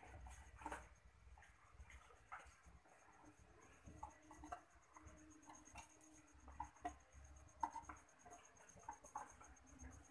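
Near silence with faint, scattered scratches and light taps: kittens scrabbling about in a small wooden box.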